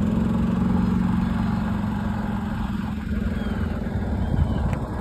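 Motor vehicle engine running with a steady low hum that fades away about four seconds in. A few short high chirps come in near the end.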